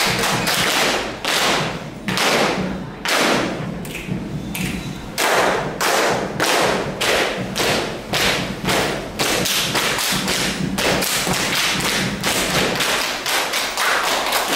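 Ratoh jaroe body percussion: a group of seated dancers slapping their chests and thighs and clapping in unison, a quick run of sharp thumps and slaps with no music.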